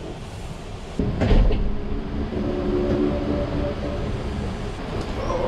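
Passenger van's sliding side door unlatching and opening with a sudden clunk about a second in, over the van's steady rumble. A steady whirring hum follows for a few seconds.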